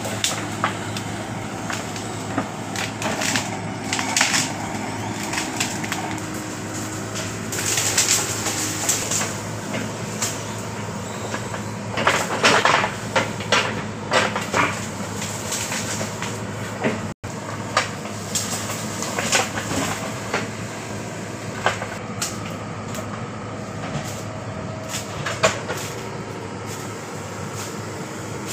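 Backhoe loader's diesel engine running steadily while the machine works through thick brush. Over it, branches and undergrowth crack and snap over and over, in irregular bursts.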